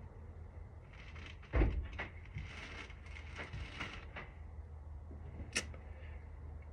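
Small metal lock parts being handled with tweezers while springs and top pins are loaded into a deadbolt cylinder: a knock about a second and a half in, then light scattered clicks and a sharp click near the end, over a steady low hum.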